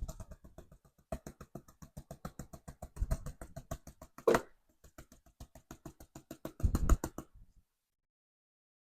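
Rapid, even tapping on a gold pan, about six taps a second, with a louder knock near the middle and a heavier cluster near the end, then stopping abruptly; tapping like this settles the fine gold in the pan.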